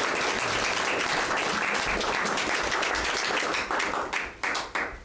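Small audience applauding by hand, the clapping thinning to a few scattered claps near the end and then stopping.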